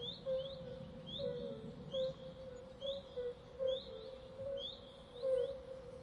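Forest swamp ambience: a short, high rising call repeats about once a second over a steady, lower warbling chorus of animal calls.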